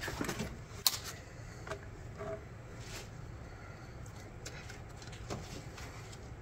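Scattered light clicks, knocks and rubbery handling noises as gloved hands work the air intake hose and small vacuum pipes off a Toyota Corolla's engine, with one sharp click about a second in, over a steady low hum.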